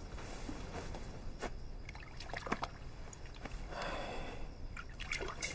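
Quiet handling sounds: light clicks and knocks of small household objects, with a short soft trickle of water about four seconds in.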